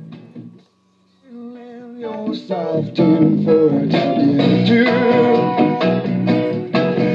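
A record with singing and guitar playing through a restored 1953 RCA 3-HES-5 record player. The music dips almost to nothing about a second in, then swells back to full over the next two seconds as a front-panel knob is turned.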